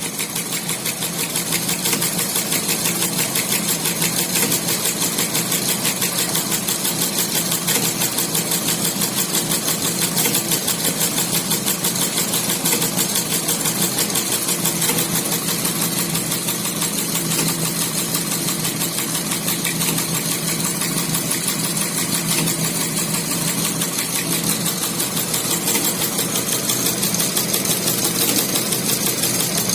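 HSW 12-needle high-speed embroidery machine running steadily, its needle strokes making a fast, even chatter.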